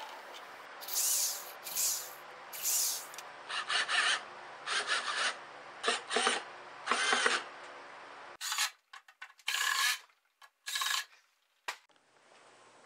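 Cordless drill driving wood screws into pine boards in about a dozen short bursts. In the second half the bursts are chopped apart by abrupt silent gaps.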